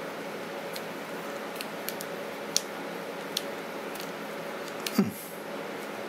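Small metallic clicks and ticks of a screwdriver turning tight little screws out of a finned aluminium NVMe heatsink (Thermalright HR-09 2280 Pro), with a louder knock about five seconds in, over a steady hum.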